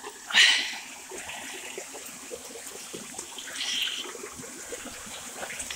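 Water from a small irrigation canal (levada) running and trickling over rocks into a stone cave, a steady low rush. A short louder burst of noise comes about half a second in.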